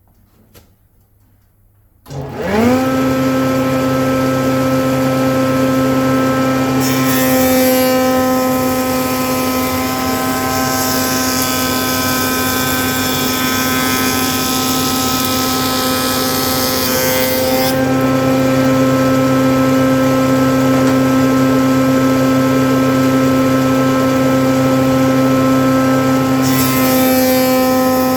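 Power cutter with a spinning knife head switched on about two seconds in, quickly spinning up to a steady high whine. It then cuts a groove along a plank edge: a harsher hiss while the knives bite the wood lasts about ten seconds, and the hiss comes again near the end with a second pass.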